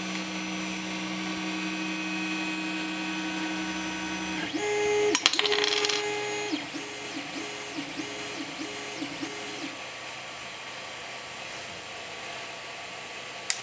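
Creality Ender 3 3D printer's stepper motors whining as the head and bed travel: a steady two-tone hum for about four seconds, then a higher whine broken by a sharp click, then a run of short rising and falling whines, about two a second. One more click near the end.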